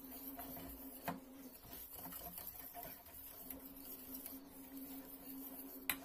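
Wire whisk stirring thick custard in a stainless steel saucepan: repeated soft scraping strokes against the pan, with a sharper clink of the whisk on the metal about a second in and again near the end, over a steady low hum.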